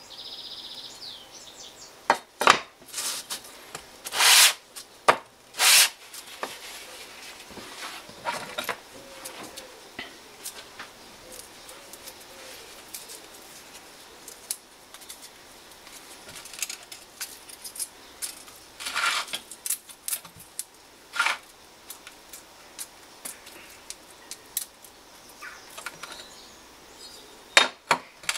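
Metal clicks and clinks as a crankshaft oil seal housing and a steel feeler gauge are handled on a wooden bench, with a few loud short scraping strokes a few seconds in, the housing's face being rubbed on sandpaper.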